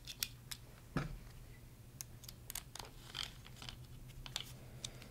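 Light clicks and taps of a small metal servo and aluminium gear rack assembly being handled and turned over in the hands, with one louder knock about a second in.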